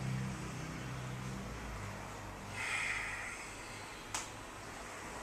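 A person's forceful breath out, about two and a half seconds in, paced with a slow qigong movement. A single sharp click follows near the end.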